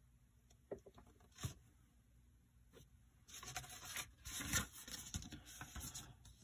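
Faint rustling and crinkling of a large paper instruction sheet being folded up, starting about halfway through. Before that it is nearly quiet, with a couple of light taps.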